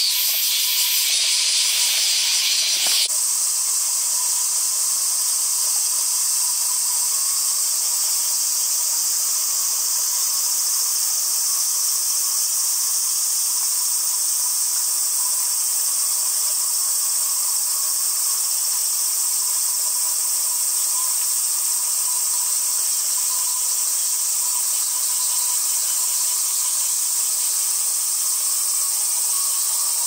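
A male minmin cicada (Hyalessa maculaticollis) singing close by; its song cuts off suddenly about three seconds in. From then on there is a steady high-pitched drone of cicadas singing in the background.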